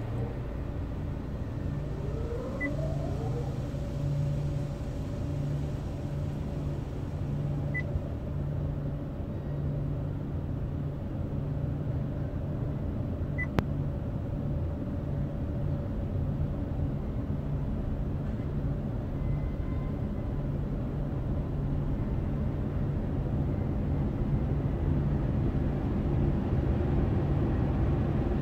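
Automatic car wash machinery and water spray heard from inside the car's cabin: a steady low rumble that grows louder toward the end. A few faint short beeps come in the first half, and there is one sharp click about halfway through.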